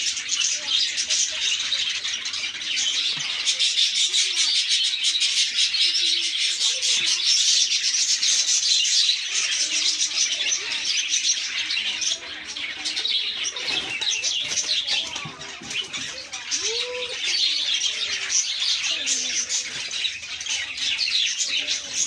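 A flock of caged budgerigars chattering and chirping together in a dense, unbroken twitter.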